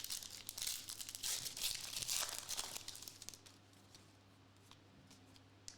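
Foil wrapper of a Topps Formula 1 trading-card pack being torn open and crinkled: a dense crackle for about three seconds, then quiet apart from a single click near the end.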